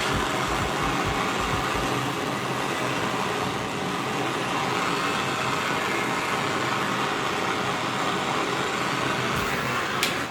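Plumbing torch burning with a steady roaring hiss while heating a copper pipe joint for soldering, cutting off abruptly at the end.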